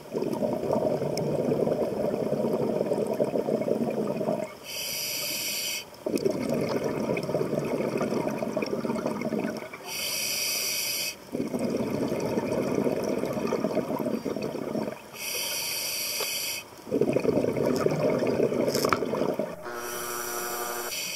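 Scuba diver breathing through a regulator underwater. Each breath is a short hissing inhale through the demand valve, then a longer bubbling rush of exhaled air, about four breaths in all. The last inhale near the end carries a humming tone.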